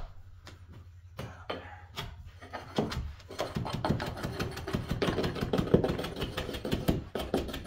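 Carpet being trimmed along the baseboard: a fast, crackling scrape of the blade working through the carpet's backing, building up about two and a half seconds in and running on.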